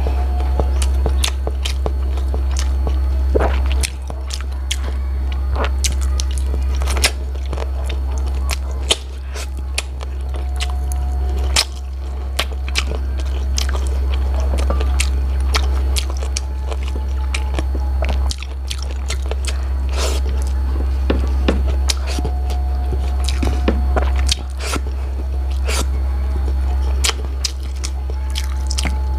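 Close-miked eating of chicken feet adobo by hand: chewing and biting, with many sharp clicks and crunches as the skin and cartilage are bitten and pulled off the bones, over a steady low rumble.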